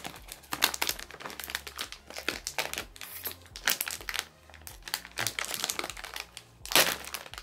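Plastic candy packet crinkling and rustling as it is worked open by hand, in a run of irregular crackles with one louder crinkle near the end.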